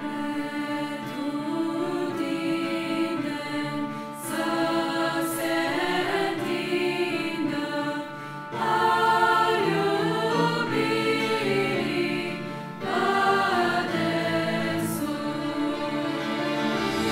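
Mixed youth choir singing a Romanian hymn in phrases of about four seconds each, with brief breaths between them.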